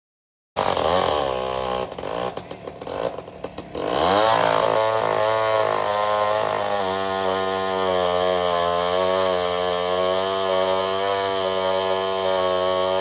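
Vintage chainsaw engine running. It starts abruptly, sputters unevenly for a couple of seconds, then picks up about four seconds in and runs at a steady speed.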